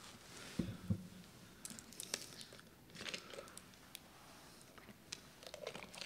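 Faint paper rustling and small clicks handled close to a lectern microphone, with two low thumps under a second in.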